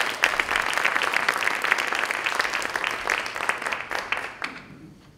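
Audience applauding: many hands clapping in a steady patter that fades away near the end.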